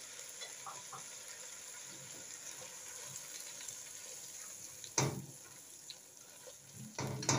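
Chicken, potatoes and freshly added diced tomatoes sizzling in a metal pot, a steady hiss. A silicone spatula stirs the food, with a louder scrape against the pot about five seconds in and another near the end.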